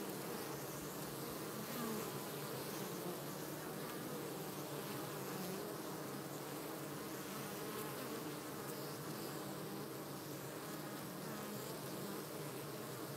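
Many honey bees buzzing at a busy hive entrance: a steady, dense hum of many overlapping wingbeat tones.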